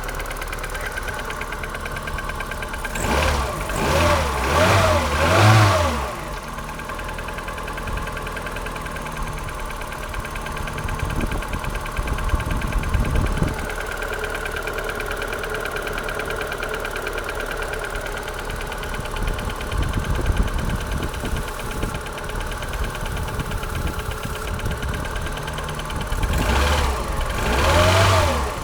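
Rover K-series 1.4 16-valve engine in a Polonez Caro idling with a rhythmic knock that the owner identifies as piston slap, typical of a cold engine. The throttle is blipped three times a few seconds in and twice near the end, with the engine speed rising and falling each time.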